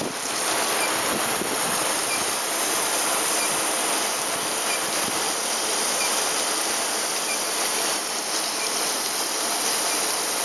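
Steady hiss of quench water spraying from the ring below an induction-hardening coil onto a steel rod as it passes through and is heated, with a faint tick about once a second.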